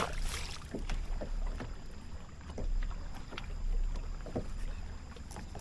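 Boat-on-water ambience: a steady low rumble of wind and water, with a sharp click right at the start and scattered faint ticks and light slaps after it.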